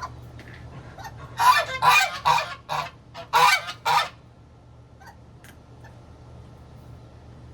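Domestic geese honking, a quick run of about six loud calls lasting some three seconds.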